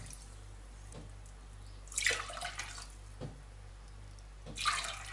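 Cold water splashing briefly into a steel pot of sugar, twice, with a light knock of a drinking glass in between.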